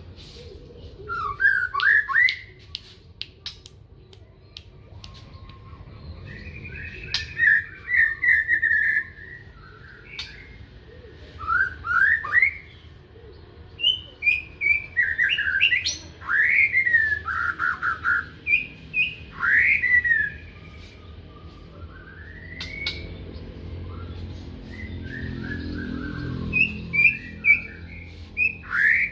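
Songbird singing its morning song: bursts of quick rising whistled sweeps and chirped notes, phrase after phrase with short pauses between.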